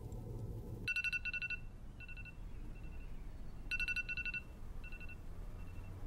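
Electronic ringing: a rapid trilled high beep in two bursts about three seconds apart, each trailing off in fainter, fading echoes.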